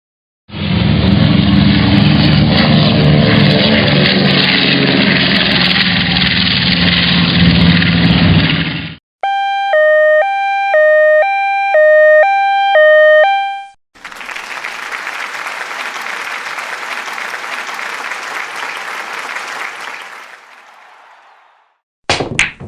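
A run of stock sound effects played one after another: a loud rumbling noise for about eight seconds, then an electronic two-note chime alternating about six times, then a hiss of noise that slowly fades out, with another short effect starting right at the end.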